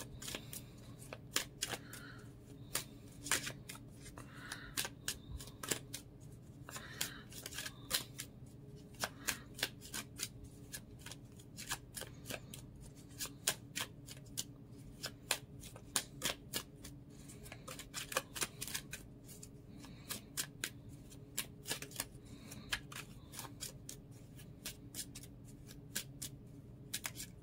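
A deck of oracle cards being shuffled by hand: the cards clack and flick against each other in quick, irregular clicks throughout.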